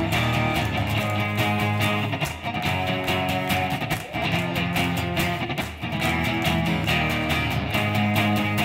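Two guitars, one of them electric, played together live: strummed chords with picked notes over a steady rhythm.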